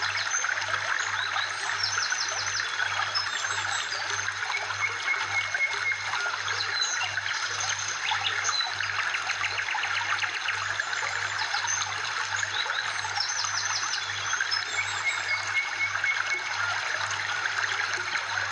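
Background ambience track of steadily trickling, flowing water with short high chirps over it, looping about every ten seconds.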